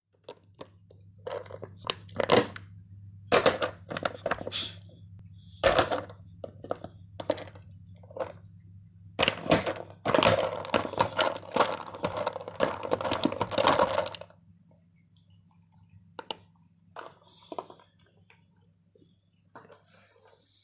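Empty plastic drink bottle crackling and crunching in irregular bursts as a boxer dog chews and paws at it. The crunching is densest and loudest around the middle, then thins to a few soft crackles near the end.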